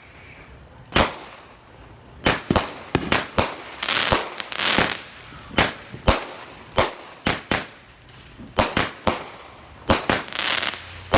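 Consumer multi-shot firework cake firing: a string of sharp bangs at uneven intervals, with longer crackling bursts about four seconds in and again near the end.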